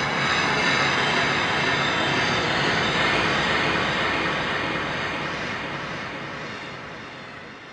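Dark ambience sound effect: a dense, noisy drone with faint steady tones in it, fading out over the last few seconds.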